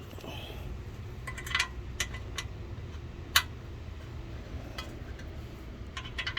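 Scattered light metallic clicks and clinks of a hand tool working on a motorcycle exhaust bolt, spaced irregularly, the sharpest about three and a half seconds in.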